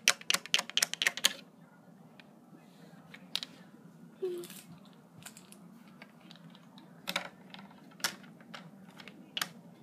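Small plastic toy figurines tapped against a hard surface as they are hopped along: a quick run of clicks in the first second or so, then a single tap every second or two.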